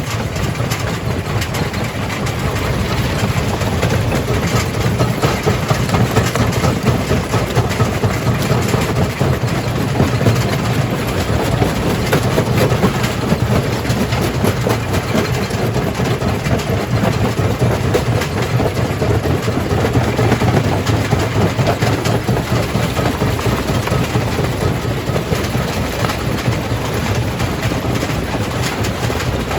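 Jaw crusher crushing rock: a steady heavy-engine rumble under a constant dense clatter of knocks and rattling.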